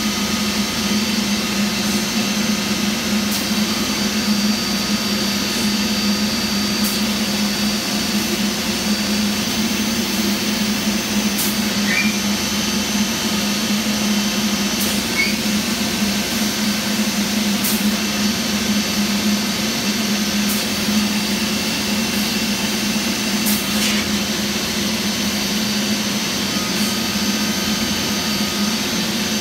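Holz-Her Eco-Master 7120 CNC machining centre running, a steady mechanical drone with a faint high whine over it, broken by a few brief sharp clicks.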